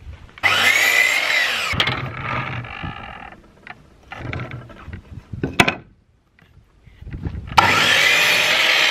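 Electric sliding mitre saw running and cutting through a wooden board, twice: once about half a second in and again near the end, the motor's whine bending in pitch as the blade cuts. Between the cuts the motor's hum fades, with a sharp click a little after halfway.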